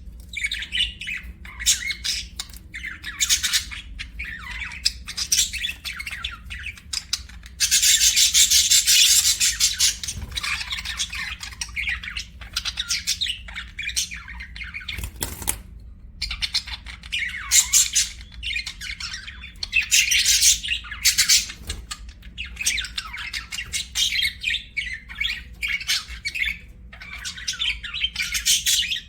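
Budgerigars chirping and chattering almost without a break, with a louder stretch of dense, squawky chatter about a third of the way in.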